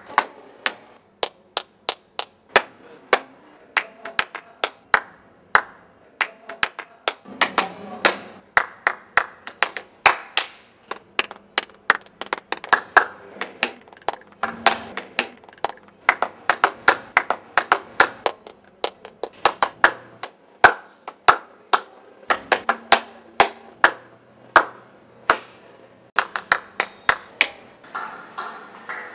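One person's bare hands clapping, one sharp clap after another, in an uneven rhythm of about two or three claps a second with a few brief pauses.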